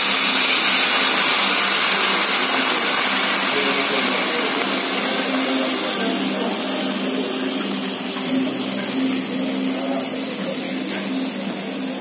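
Sauce sizzling on a hot cast-iron sizzler skillet of fries: a loud, steady hiss that slowly dies down.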